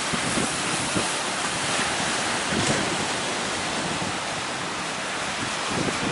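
Heavy ocean surf breaking and washing, with a surge about two seconds in, while wind buffets the microphone.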